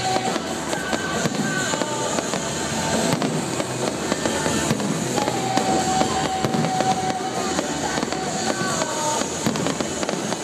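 Fireworks display: dense, continuous crackling and popping of bursting shells at an even loudness, with no single bang standing out above the rest.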